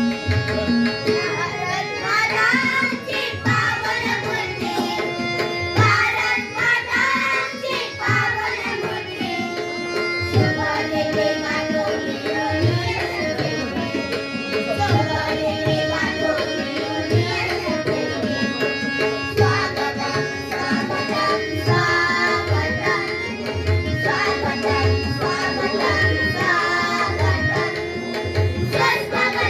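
Devotional welcome song: voices singing over tabla drumming and held instrumental notes.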